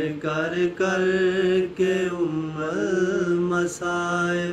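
Male voices chanting a Punjabi noha, a Shia lament, without instruments, in long held notes with a slight waver.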